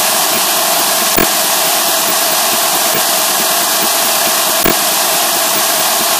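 Loud, steady static-like noise with no pitch, strongest in the upper range and thin in the bass, with two brief clicks, about a second in and about three-quarters of the way through.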